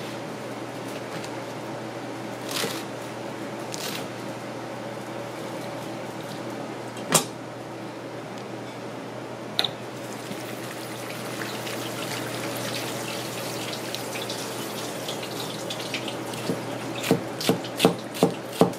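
Tap water running over a vegetable being rinsed by hand, followed near the end by a quick run of chef's-knife chops on a cutting board, with a steady low hum underneath.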